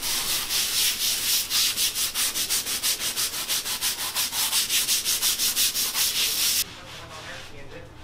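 A hand scraper rubbed rapidly back and forth over a bare concrete floor at about five strokes a second, scraping off carpet-pad residue. It stops suddenly near the end.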